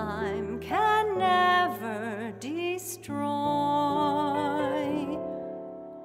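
A woman singing a wordless or unintelligible melodic line with vibrato over sustained accompaniment chords. About halfway through she holds one long note with vibrato, which fades near the end.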